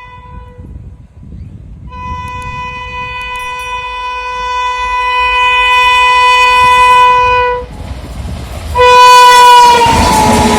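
WAP-7 electric locomotive's horn sounding a long blast that grows louder as the train approaches at speed. A second, shorter blast follows about a second later, and its pitch drops as the locomotive passes. The loud noise of the express train rushing past comes right after.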